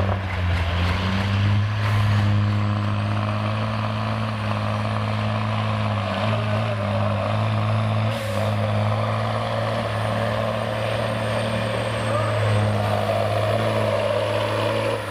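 Diesel engine of a Kenworth semi tractor running at low, steady revs as the truck creeps along, with a faint high whine over it. A short hiss about eight seconds in.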